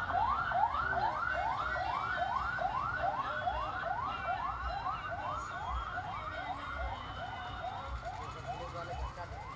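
Electronic siren on a fast yelp: a quick rising sweep repeated a little more than twice a second, slowly fading.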